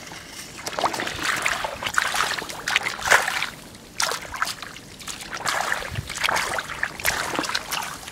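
Shallow muddy water splashing and sloshing in uneven bursts as a person wades and feels about with a hand in a flooded rice field.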